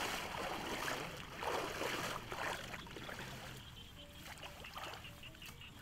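Shallow muddy floodwater sloshing and swishing as a person wades through it, in a few surges over the first couple of seconds, then quieter.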